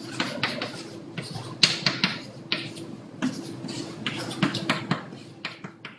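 Chalk writing on a blackboard: a quick run of short scratches and taps as letters are written, stopping near the end, over a faint steady low hum.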